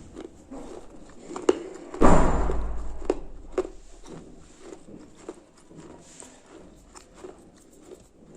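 Close-up chewing of hard, crunchy food: a few sharp clicks, then one loud crunch about two seconds in that crumbles away over a second, then softer scattered crunches.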